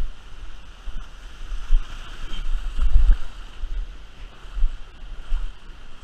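River water rushing, with irregular low thumps on the microphone about once or twice a second.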